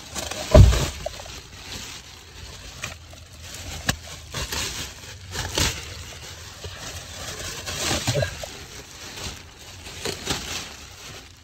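Thin protective plastic sheeting being pulled and torn off a new car's seat and door trim, crinkling and rustling on and off. There is a low thump about half a second in.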